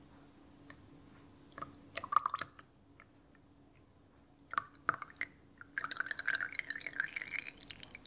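Melted candle wax being poured into a glass jar: a few clinks and short splashy trickles, then a longer steady pour in the last couple of seconds.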